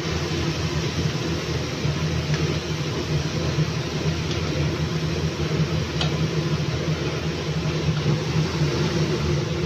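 A steady mechanical whir with hiss and a low hum, even in level throughout, while greens are stirred in a steel kadai; a few faint clinks of the steel spatula on the pan about two, four and six seconds in.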